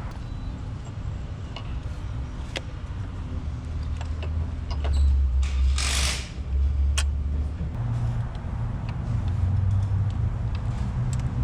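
Light clicks and knocks of metal parts and tools being handled on an engine, over a steady low hum, with a brief loud hiss about six seconds in.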